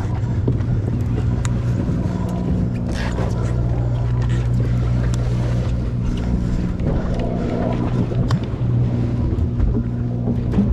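Sportfishing boat's engine running with a steady low hum, with a few light knocks on deck.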